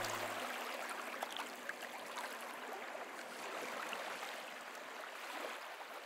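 The last low note of string music dies away at the start, leaving an even wash of gentle water, small waves lapping and trickling with many tiny splashes, which slowly fades.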